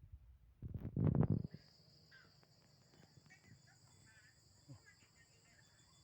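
A loud low rumble of handling or wind noise on the microphone about a second in, then a steady high insect drone, with faint short chirps scattered through it.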